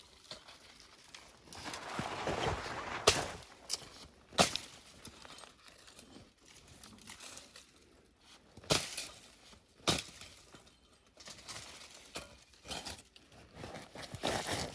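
Brush and twigs rustling and crackling, with a few sharp snaps of sticks breaking, as a lynx pen is built from brush.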